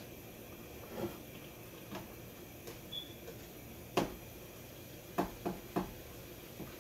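A plastic slotted spoon stirs papaya cubes in boiling sugar syrup and knocks against the non-stick pan. Scattered taps, the loudest about four seconds in and three quick taps near the end, sound over a steady faint hiss.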